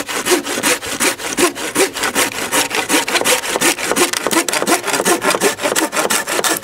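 Folding hand saw cutting through a dead, dry wooden pole in quick, even back-and-forth strokes, about four a second.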